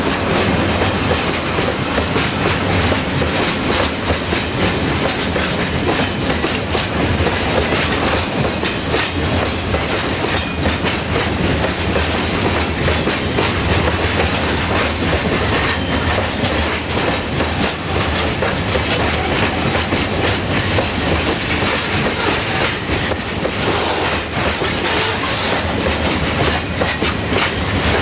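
Freight train of covered hopper wagons rolling past close by. A steady loud rumble of steel wheels on the rails, with frequent clicks as the wheels pass over the rail joints.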